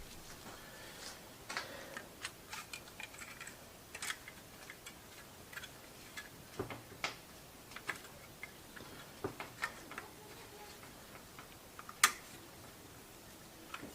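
Scattered light clicks and taps of tools and metal engine parts being handled during motorcycle engine assembly, with one sharper click about twelve seconds in.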